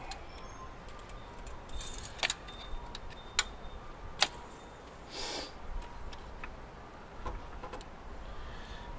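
Small metal clicks and taps, the sharpest a few seconds in, with a short rustle around five seconds: an engine oil dipstick being drawn from its tube and handled to check the oil level.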